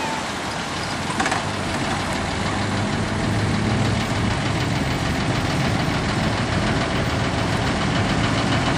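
An engine running steadily at a low, even pitch, with a brief click about a second in.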